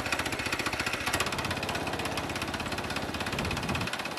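Portable bandsaw mill's small petrol engine running, with a rapid, even firing rhythm.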